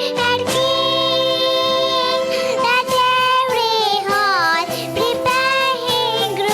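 A Christian Christmas song sung with instrumental accompaniment, the voice holding long notes and sliding between pitches.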